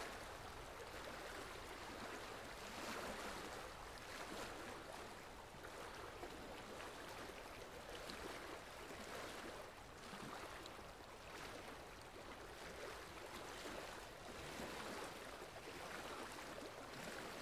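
Faint, steady trickle of running water from a rainforest-style display aquarium, with water dripping into the tank.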